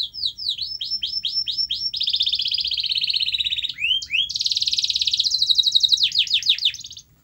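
Domestic canary singing: rapid series of falling whistled notes, then fast buzzing trills broken by two short rising notes, then a last run of falling notes before the song stops about a second before the end.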